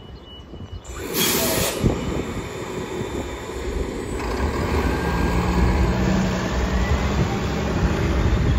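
New Flyer Xcelsior XDE60 articulated diesel-electric hybrid bus pulling away from the stop: a short loud hiss of air about a second in, then the drivetrain running louder as it drives off, with a faint rising whine midway.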